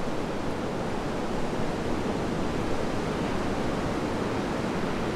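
Storm surf breaking and washing onto a sand beach: a steady, even rush of noise.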